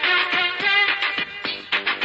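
Bangla film dance-song music with a steady beat and a wavering melody line; near the end the beat comes to the fore.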